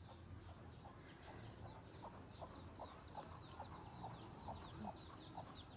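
Chickens clucking faintly: a run of short, evenly spaced clucks, about two or three a second, over many quick, high, falling chirps.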